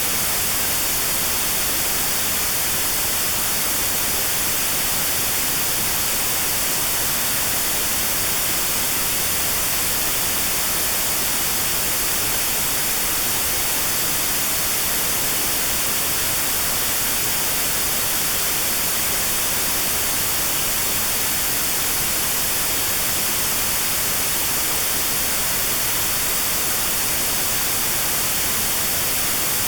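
Steady white noise with a narrow band around 4 kHz filtered out: notched sound for tinnitus therapy. It is an even hiss, strongest in the highs.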